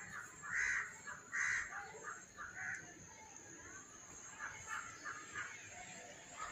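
A crow cawing three times in quick succession, then fainter, shorter calls.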